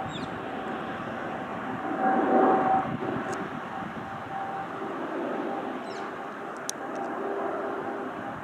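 Boeing 777 jet airliner's twin engines overhead, heard from the ground as a steady rumble with a faint steady tone in it, swelling louder for a moment about two seconds in.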